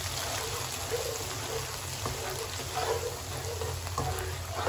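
Chili paste and fermented soybean paste sizzling in hot oil in a wok, with a silicone spatula stirring and scraping through it about once a second.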